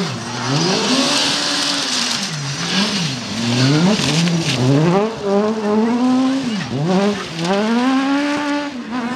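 Suzuki Swift rally car engine revving hard. Its pitch climbs and drops sharply about six times as the throttle is worked while the car slides on a loose mud and gravel stage. About a second in there is a hiss from the tyres spraying the surface.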